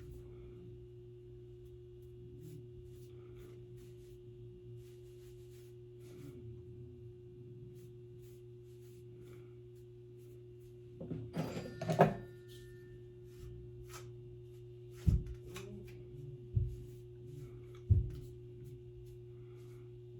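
Steady low electrical hum with faint rustling. A brief clatter comes about eleven seconds in, then three dull thumps near the end.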